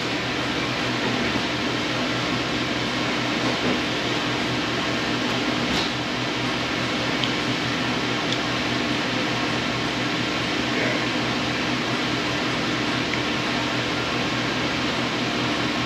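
Steady whirr of an air-conditioning fan, with a low hum underneath and one faint click about six seconds in.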